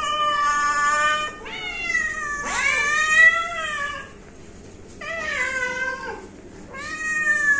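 Domestic cats meowing: a run of about five long, drawn-out meows one after another, with a short pause about four seconds in.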